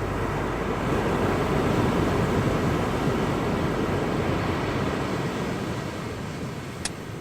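Seashore ambience: a steady rushing noise that eases off after about five seconds, with one sharp click near the end.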